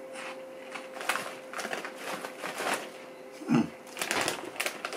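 Crunchy Andy Capp's Fire Fries corn snack being chewed, a quick run of crisp crunching clicks, with a short low hum about three and a half seconds in. Near the end the foil snack bag crinkles sharply as a hand reaches into it.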